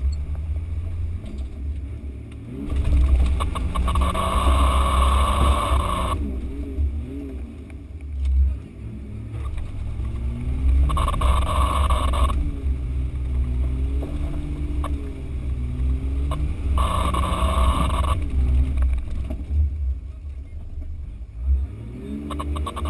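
Off-road 4x4's engine working slowly under load, its pitch rising and falling as the throttle is worked, with three spells of louder, harsher noise.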